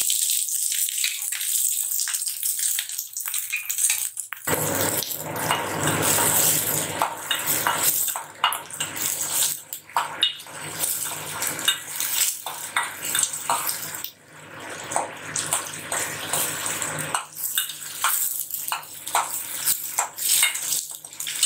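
Halved small onions sizzling in hot sesame oil in a stainless steel kadai. From about four seconds in, a metal spatula stirring them clinks and scrapes against the pan.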